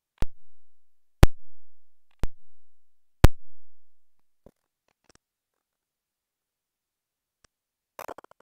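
Four electronic drum hits, evenly spaced one second apart, each dying away with a low tail; a few faint clicks follow, and a short rattle comes near the end.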